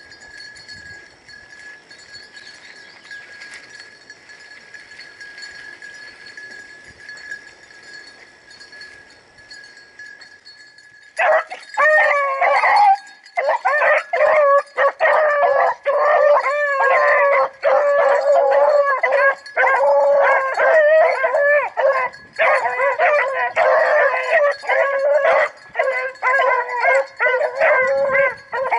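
A pack of rabbit dogs opens up about eleven seconds in and bays continuously, many voices overlapping, as they run a rabbit's trail. Before that there is only a faint steady high tone.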